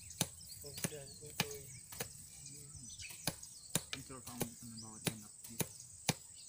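Hoe (asarol) blades chopping into dry field soil: a run of sharp strikes, roughly two a second and unevenly spaced.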